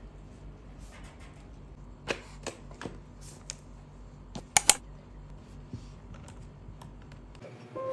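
A few scattered sharp clicks and taps over a steady low hum, with two loud clicks close together about four and a half seconds in.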